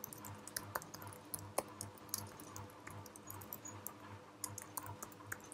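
Typing on a computer keyboard: quick, irregular, faint keystroke clicks.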